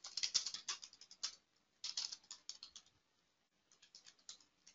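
Faint typing on a computer keyboard: two quick flurries of keystrokes, a short pause, then a few more keys near the end.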